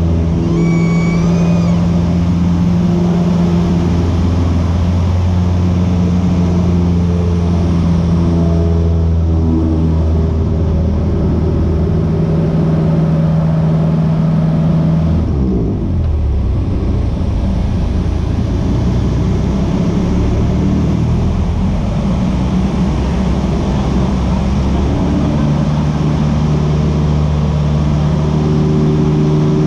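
Piston engine and propeller of a light high-wing aircraft droning steadily, heard inside the cabin during aerobatic manoeuvres. About halfway through the engine note sweeps down and stays lower, then rises again a few seconds before the end; a brief high beep sounds about a second in.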